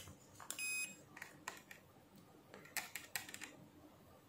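A single short electronic beep from a Fluke 179 digital multimeter about half a second in, followed by a few faint clicks of test probe tips touching the thermal fuse's terminals.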